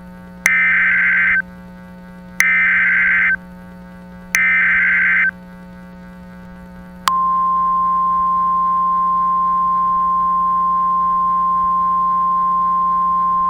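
Emergency Alert System SAME header: three identical bursts of screeching digital data, each about a second long, about two seconds apart. Then a steady single-pitch attention tone starts about seven seconds in and holds, signalling that an alert message follows.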